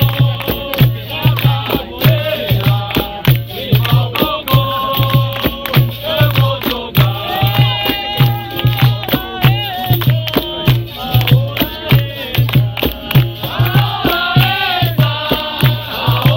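Live capoeira roda music: a hand drum keeping a steady beat under singing voices, with rattling percussion and sharp hand-struck hits.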